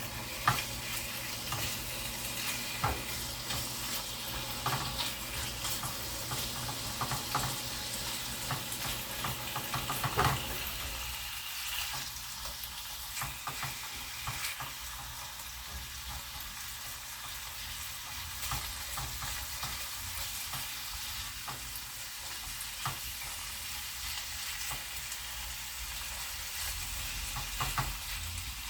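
Chicken pieces frying in oil in a frying pan, a steady sizzle, with a utensil knocking and scraping against the pan as they are stirred, busiest in roughly the first ten seconds.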